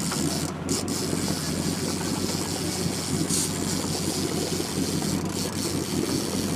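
Fishing boat's engine running steadily with a low hum, under a constant hiss of wind and water.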